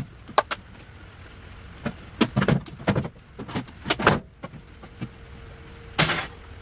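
Irregular clanks and knocks from the steel frame and wooden deck parts of an old utility trailer being handled and shifted during teardown, with a louder, longer clatter about six seconds in.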